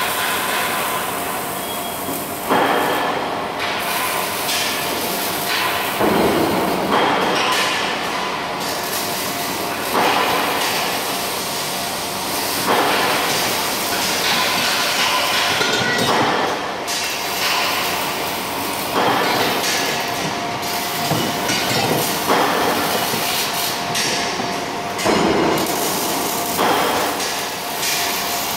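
Robotic arc welder laying a series of short welds on stamped steel car-body parts. Each weld is a loud, noisy stretch of one to three seconds that starts suddenly, about every three to four seconds, over a steady factory hum.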